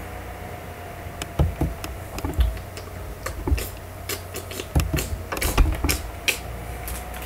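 Scattered knocks, clicks and dull thumps from a person moving and bumping about right next to a computer's built-in microphone, over a steady low hum.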